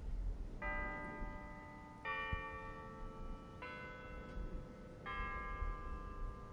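A sequence of four bell strikes about a second and a half apart, each a ringing cluster of tones that lingers until the next strike, over a low rumble.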